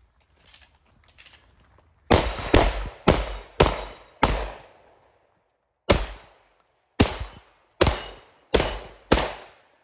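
Ten close gunshots from a competitor's long gun in two quick strings of five, each shot ringing off briefly.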